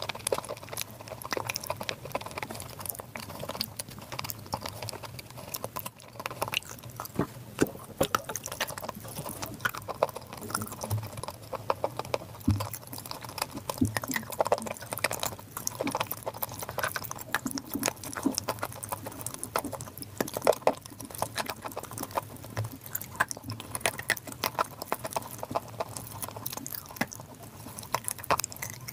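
Close-miked crunching and chewing of wet chalk soaked in clay paste: a dense, irregular run of crisp cracks and clicks as the chunks are bitten and chewed.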